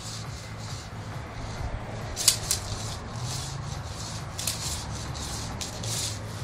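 Spinning hula hoop, which the owner calls noisy, swishing and rattling about twice a second as it circles the body. There is one sharper clack about two seconds in.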